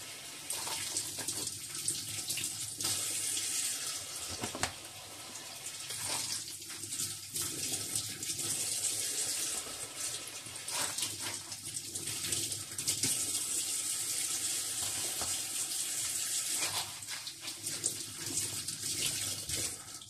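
Kitchen tap running steadily into a stainless steel sink as artichokes are rinsed under the stream. A few light knocks come through as the wet artichokes are handled and set into a plastic tub.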